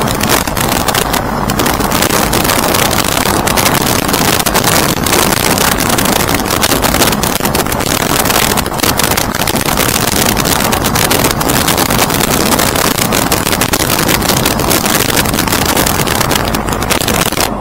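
Aircraft in flight: loud rushing wind buffeting the microphone over a steady engine drone.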